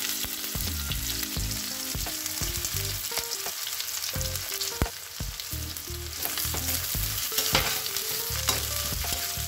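Chopped onion sizzling in hot oil and butter in a kadhai, stirred with a steel spatula that scrapes and clicks against the pan, with one sharper knock about halfway through.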